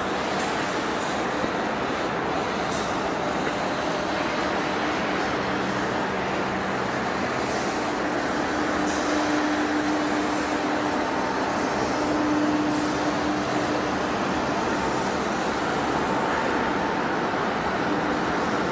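Heavy workshop machinery running, with a large lathe turning a rusty steel cylinder: a steady, noisy drone with a low hum that swells and fades several times.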